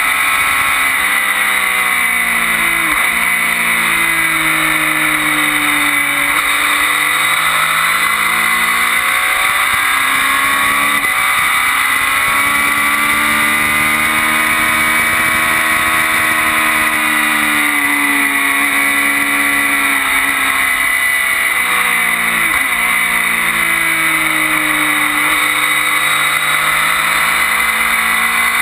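Triumph Daytona 675 three-cylinder engine under hard riding on track, its revs climbing and falling again and again with sudden drops at gear changes, over a steady rush of wind.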